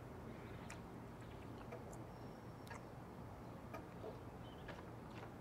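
Faint, regular ticking about once a second over quiet room tone with a low hum.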